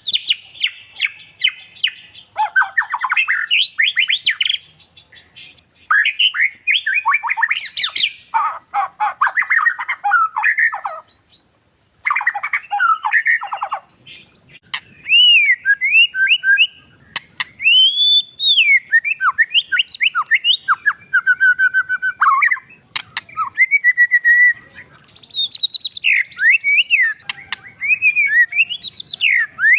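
Oriental magpie-robin (kacer) singing at full volume: bursts of fast, scratchy chattering phrases with short pauses in the first half, then clearer whistled notes that slide up and down.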